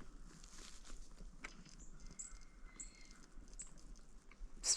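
Mostly quiet, with a few faint short ticks and soft crunches. Just before the end a loud, rapid burst of clicks begins: a camera shutter firing in continuous mode.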